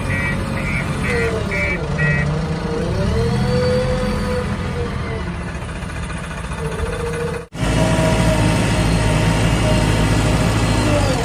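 JCB 3DX backhoe loader's diesel engine running steadily, with its reversing alarm beeping about twice a second for the first two seconds. The sound cuts out abruptly for an instant about seven and a half seconds in, then the engine carries on.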